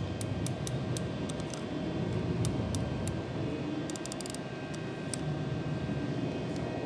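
Heavy-duty cable tie gun being worked to tension a cable tie, giving scattered faint clicks with a quick run of clicks about four seconds in, over a steady low hum.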